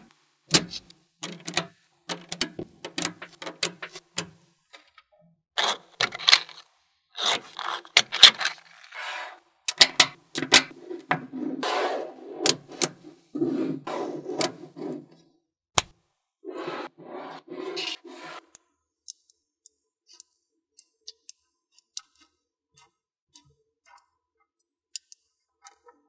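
Small magnetic metal balls clicking and scraping against each other as rows of them are snapped together and pushed into place by hand. There are quick clusters of sharp clicks and rattles for about the first two-thirds, thinning to sparse single clicks near the end.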